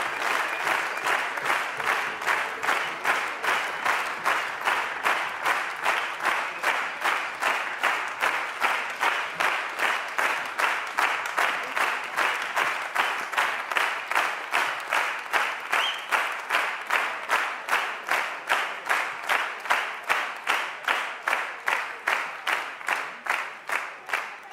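Theatre audience clapping in unison, a steady rhythmic beat of about two and a half claps a second.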